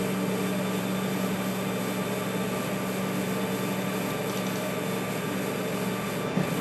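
CAMaster CNC router's axis drive motors humming steadily as the gantry carries the router head over to the tool length measuring switch during switch calibration. The hum stops shortly before the end.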